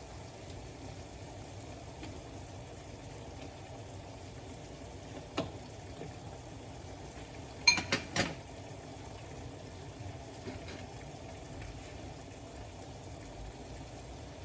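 Chicken and pineapple simmering in a pan, a steady bubbling hiss. Sharp clinks of cookware cut through it: one about five seconds in, then a quick group of three about eight seconds in, the loudest sounds here.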